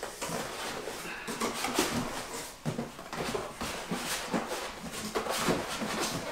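Cardboard carton and its packing rustling, scraping and knocking as a heavy KitchenAid stand mixer in its box is tilted and worked out, with a few short squeaks among the handling noises.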